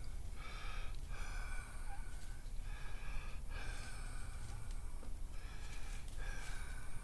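A man breathing audibly through his nose close to the microphone, in a steady run of short breaths, each about half a second to a second long.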